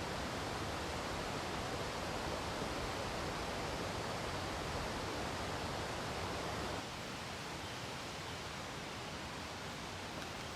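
Steady rushing of a mountain stream, an even hiss of flowing water that drops a little in level about seven seconds in.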